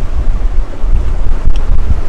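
Wind buffeting the microphone, a loud gusty low rumble, over the steady wash of sea surf.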